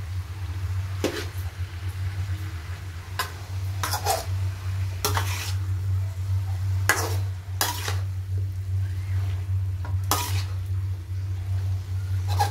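A metal spatula scraping and clanking against a metal wok as leafy greens and cauliflower are stir-fried, in irregular strokes every second or two. Underneath is a light sizzle and a steady low hum.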